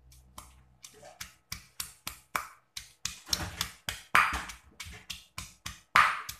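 Stone pestle pounding shallots, garlic and red chilli in a stone mortar: a steady run of knocks about three a second, with heavier strikes around the middle and near the end.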